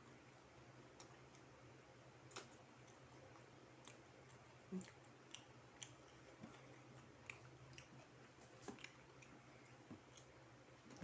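Faint, scattered clicks and crunches of someone chewing crispy breaded fried chicken, with one louder click about five seconds in, over a low steady hum.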